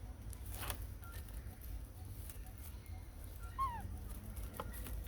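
One short animal squeak that falls in pitch, about two thirds of the way through, over a steady low rumble with scattered faint clicks and snaps.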